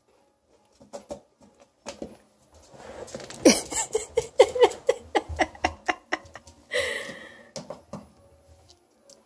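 A few light taps, then a sudden yelp falling in pitch and a quick run of short laughs, with one more cry near the end as a hen is fed a chicken bone by hand.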